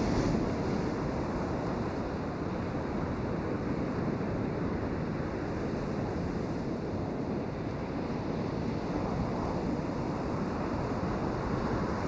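Sea surf breaking and washing up a sandy beach among rocks: a steady rushing wash.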